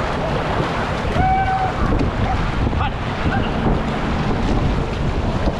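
Whitewater rushing steadily, with wind buffeting the microphone.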